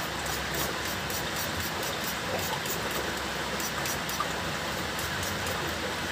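Handheld trigger spray bottle misting the substrate in a small plastic enclosure: a quick run of short, hissy squirts, then a few more, over a steady background hiss.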